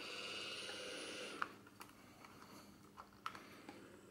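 Small electric motor inside a Revue Cockpit Sound 800 Super 8 movie camera whirring steadily, stopping with a sharp click about a second and a half in. A few small clicks of switches and handling follow.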